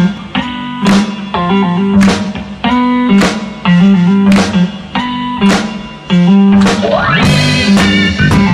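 Background music: an upbeat guitar-led instrumental with a steady beat and a repeating bass line, with a rising sweep about seven seconds in.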